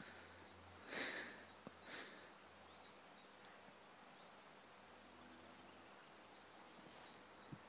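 A Rottweiler sniffing twice, about a second apart, as two short breathy puffs over quiet outdoor ambience.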